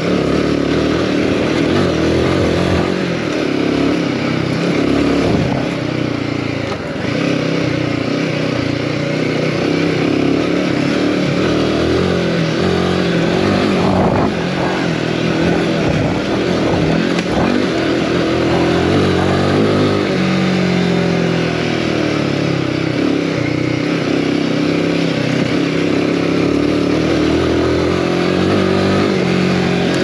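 Royal Enfield Himalayan 450's single-cylinder engine running under a rider's changing throttle on a dirt trail. Its note rises and falls as the throttle opens and closes, over a steady rushing noise.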